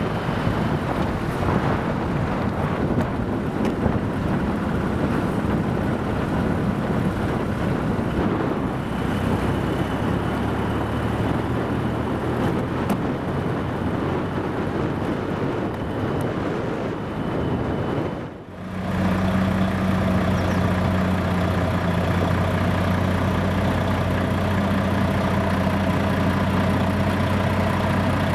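Heavy engine of road-repair machinery running, at first under a dense rushing noise. After a short break about two-thirds of the way in, it goes on as a steadier, even low hum.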